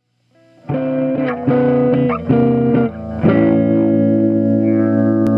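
Intro music: a distorted electric guitar strikes four chords, the last held and ringing.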